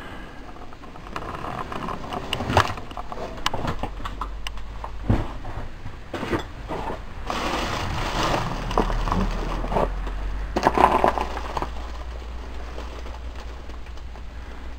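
Footsteps and handling noise in a cluttered room: scattered crackles, scrapes and a few sharp knocks, with louder rustling stretches about seven seconds in and again near eleven seconds.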